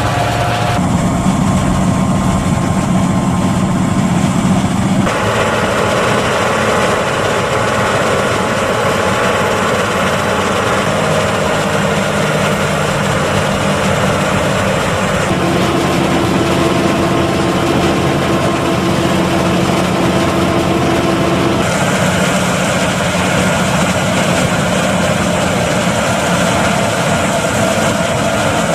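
Diesel engines of large John Deere farm tractors and a combine harvester running steadily at a corn harvest. The engine note shifts abruptly a few times.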